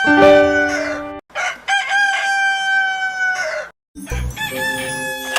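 Rooster crowing, loud and drawn out: one crow ends about a second in, then a second long crow follows with a falling tail. Near the end, after a short pause, a low thump and another pitched sound begin.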